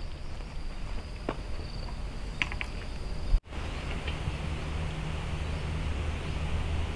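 Insects calling in a steady high-pitched tone over a low rumble of wind on the microphone, with a few light clicks. The insect tone stops at a brief dropout about three and a half seconds in, and only the low rumble continues after it.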